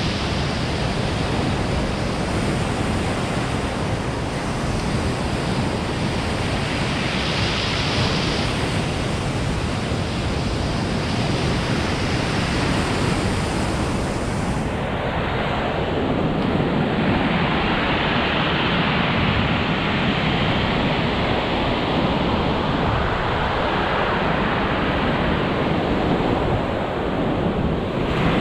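Ocean surf breaking and washing up a gravel beach, swelling and easing every several seconds, with wind rumbling on the microphone.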